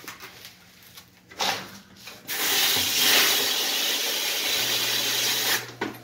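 Dishwasher spray arms spraying water inside the tub: a steady hiss for about three seconds, starting and stopping abruptly, with a shorter spurt just before it. The tub has barely filled because soap suds held up the float switch, so the spray has little water and pressure behind it.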